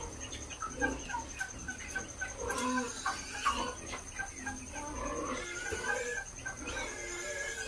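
A flock of broiler chickens clucking and peeping, many short calls overlapping.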